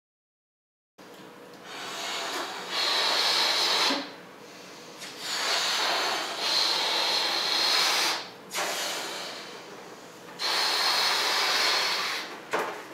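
Latex balloons being blown up by mouth: long, hissing breaths forced into the balloons, several in a row with short pauses between, starting about a second in.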